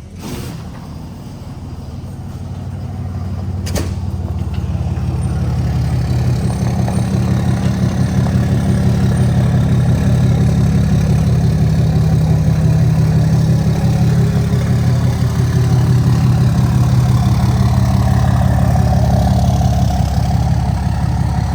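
Diesel pickup truck engine running with a steady low drone that builds over the first several seconds and then holds steady. A single click about four seconds in.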